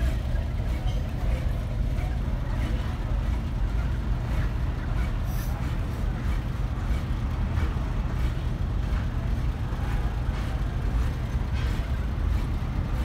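Steady low rumble of a running vehicle engine, with a few faint clicks over it.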